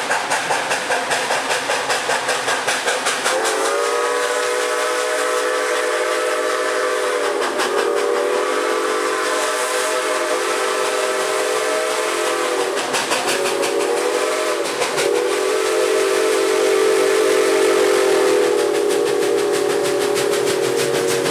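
Canadian National 7470, a 2-6-0 steam locomotive, approaching with a fast exhaust beat, then blowing its steam whistle, several notes sounding together, from about three and a half seconds in: long, long, short, long, the grade-crossing signal, with the last blast held on to the end.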